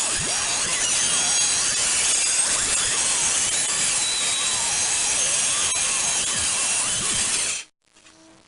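Power saw ripping lengthwise through a strip of old white oak flooring held in a jig, running steadily under load; it cuts off suddenly near the end.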